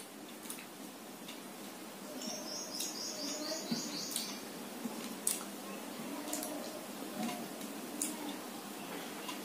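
A small bird chirping: a quick run of about eight high notes about two seconds in. Short clicks and smacks of eating by hand from a steel plate come now and then.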